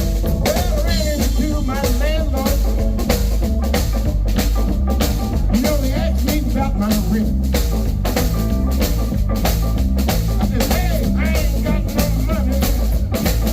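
Live blues band playing an instrumental passage: a drum kit keeps a steady beat under a bass line while a lead instrument plays bending, wavering notes, with no singing.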